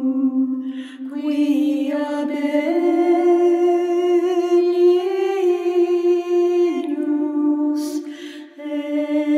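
Unaccompanied voice singing a slow melody in long held notes that step up and down, with a breath about a second in and another near the end.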